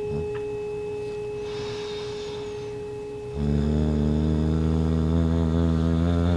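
Tuning fork sounded for a bone-healing frequency: a steady, pure ringing tone. A lower humming drone under it drops out at the start and comes back about three and a half seconds in.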